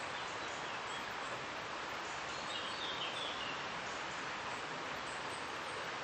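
Steady rush of a river, an even hiss, with a few brief bird chirps about two and a half to three seconds in.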